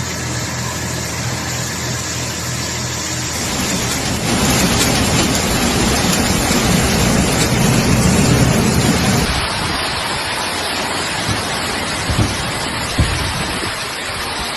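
Steady rushing noise of a heavy downpour and running storm water. It changes abruptly about four seconds in and again about nine seconds in, with a couple of sharp knocks near the end.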